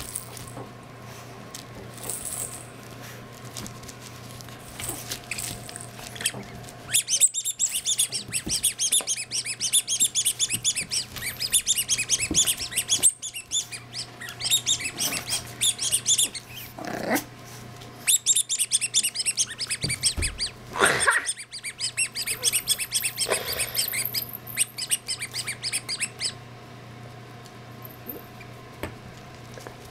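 French bulldog puppies playing rough with toys and ribbon: two long stretches of rapid, high-pitched squeaking, one starting about seven seconds in and one about eighteen seconds in, each lasting several seconds, with a couple of soft bumps between them.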